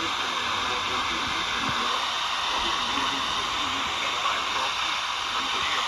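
Steady radio static hiss, with a faint, muffled voice barely audible beneath it.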